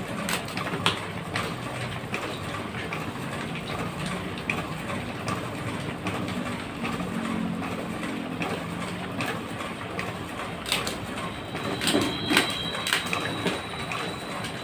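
Hand stapler clicking shut through stacks of photocopied pages, several sharp clicks with paper rustling, the loudest cluster near the end, over the steady running of a photocopier. A thin high whine comes in about eleven seconds in.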